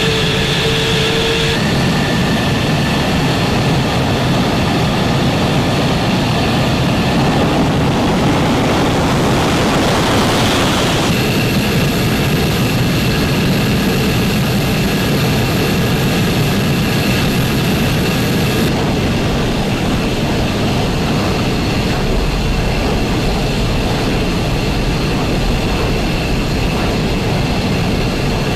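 Fighter jet engines running loud and steady, a dense rushing noise with a high whine over it; the sound changes abruptly about 1.5, 11 and 19 seconds in as one jet clip gives way to another.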